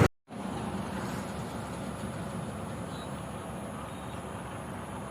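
Lorry running steadily on the road, a steady low engine hum and road noise, starting about a quarter of a second in after a brief gap.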